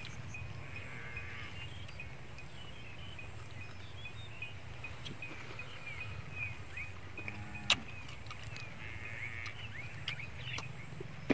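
Outdoor rural ambience: a steady low hum with small birds chirping now and then, and one sharp click about three-quarters of the way through.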